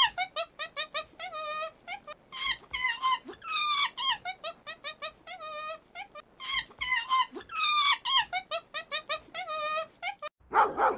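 A series of high, squeaky animal calls, short sliding chirps and quick trills, with the same short sequence repeating several times.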